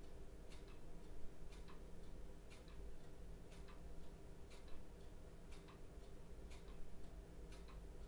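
Clock ticking steadily, about one tick a second, in a quiet room with a faint low steady hum of room tone.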